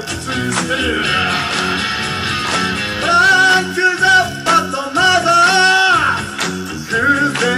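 Background music: an upbeat rock song with guitar and a sung melody over a steady beat.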